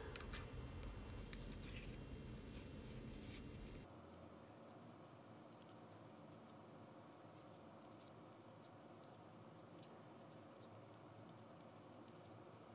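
Faint scattered clicks and rubbing of wooden knitting needles and chunky yarn as stitches are cast off.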